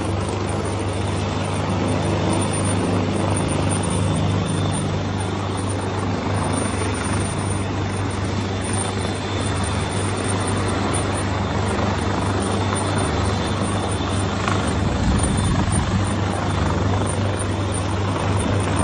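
Helicopter hovering for a winch rescue over floodwater: steady, loud rotor and engine noise with a low throbbing hum and a thin steady turbine whine.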